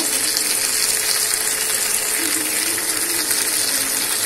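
Onion, capsicum and garlic with Schezwan sauce sizzling steadily in hot oil in a wok.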